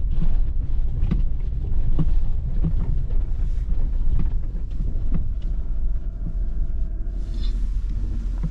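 Pickup truck driving over a rough dirt track, heard from inside the cab: a steady low road rumble with frequent knocks and rattles from the bumps. A steady hum joins about five seconds in.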